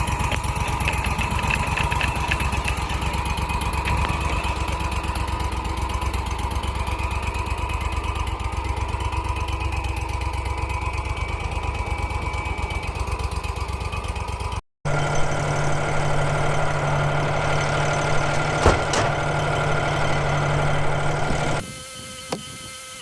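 Small engine running steadily with a low pulsing throb. About two-thirds of the way through, the sound cuts off abruptly and a steadier engine hum with a stronger single low tone takes over; this drops away sharply near the end.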